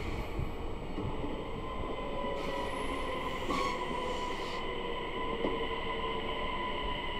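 SJ electric passenger train departing on a curve, its wheels squealing in steady high tones against the rails, with a hiss swelling and fading in the middle.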